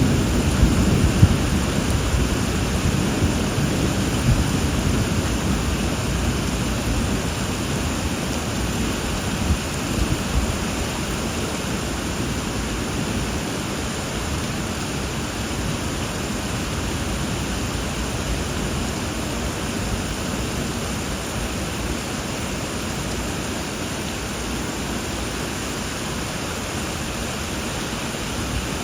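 Steady monsoon rain falling, with a low rumble of thunder that dies away over the first few seconds.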